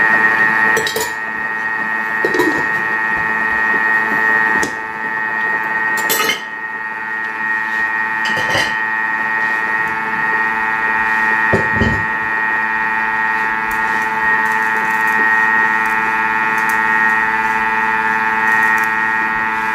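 Thermomix food processor motor running at speed 4, mixing cake batter with a steady high whine. Several clinks and knocks from glass storage jars and their wooden lids being closed and set down.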